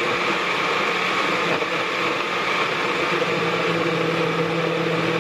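Countertop blender running steadily, blending fruit and almond milk into a smoothie; the motor's tone drops slightly in pitch about three and a half seconds in.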